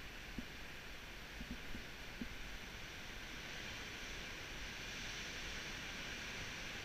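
Steady wind and distant sea surf hiss, with a few faint clicks in the first couple of seconds.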